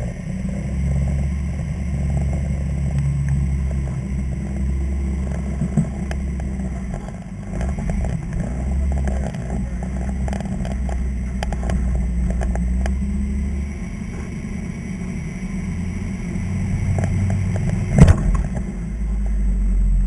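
Rock crawler's engine running at low speed, its revs swelling and dropping, as it works under load up a steep rock ledge. Scattered knocks and clatter come from the rocks and chassis, and one sharp bang near the end is the loudest sound.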